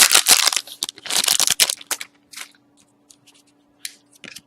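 Hockey card pack wrapper being torn open and crinkled, loud for about two seconds, then a few light ticks and rustles as the cards are handled.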